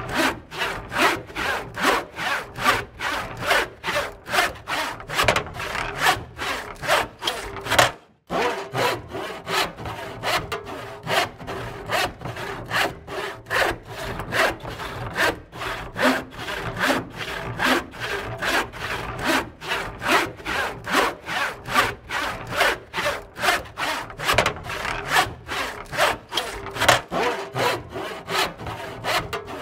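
Hand saw cutting through wood in quick, even back-and-forth rasping strokes. The strokes break off briefly about eight seconds in, then carry on.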